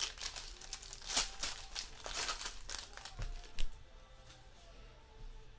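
Foil wrapper of a trading-card pack crinkling and tearing as it is pulled open by hand, for about three seconds. A single sharp tap follows, then quieter handling of the cards.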